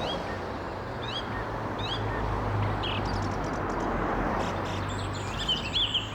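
A song thrush sings short, high, upswept notes about once a second, with a busier phrase near the end. Behind it runs the steady rumble of busy road traffic.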